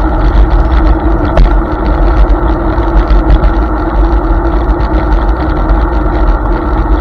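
Steady wind buffeting on the microphone and road rumble from a Hiboy S2 Pro electric scooter riding at speed on a road shoulder.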